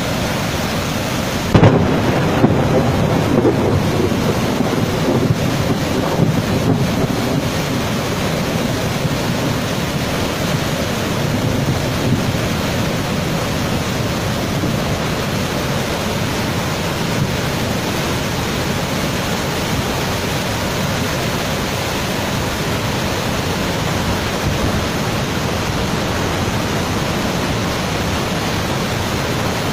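Waterfall in full flood: a steady, heavy rush of muddy floodwater pouring over the falls. A sudden louder low rumble comes in about a second and a half in and eases off over several seconds.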